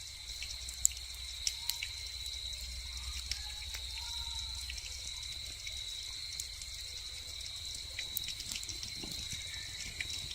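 Outdoor night ambience: a steady, high-pitched chorus of calling animals, with a low rumble underneath and scattered faint ticks.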